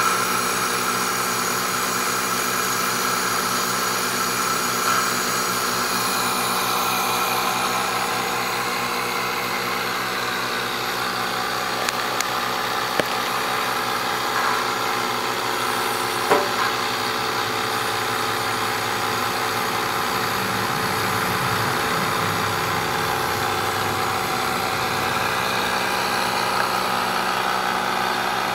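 Steady mechanical hum of a homemade downdraft wood gasifier's motor-driven blower, running evenly while it feeds woodgas to a stove burner, with a few light clicks about halfway through.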